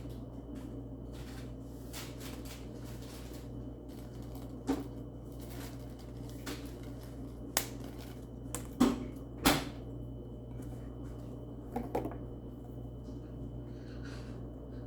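Scattered light clicks and knocks of small objects being handled, about half a dozen spread irregularly, the two loudest close together near the middle, over a steady low hum.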